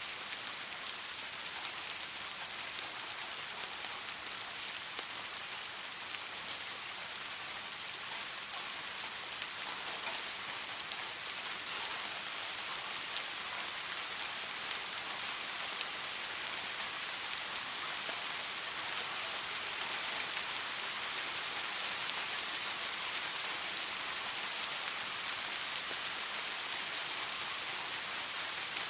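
Steady soft rain falling, an even hiss dotted with faint scattered drop ticks.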